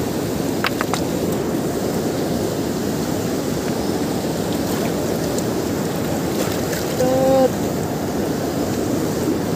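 Fast mountain river rushing over boulders in a steady, loud wash of water noise. About seven seconds in, a short pitched sound lasting about half a second rises briefly above it.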